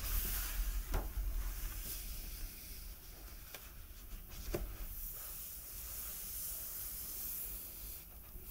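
Hands brushing and turning the glossy pages of a hardcover comic album, a soft paper hiss with a few light taps.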